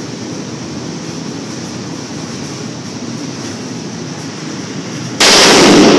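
A single shot from a Barrett .50 BMG rifle about five seconds in, very loud and overloading the microphone, ringing on in the indoor range. Before it, steady background noise.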